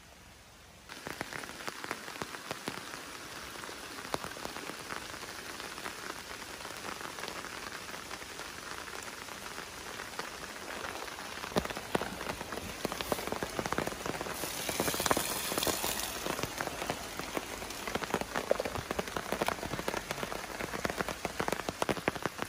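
Rain pattering on a poncho tarp shelter overhead: a dense patter of drops that starts abruptly about a second in, with a stronger hiss for a moment around the middle.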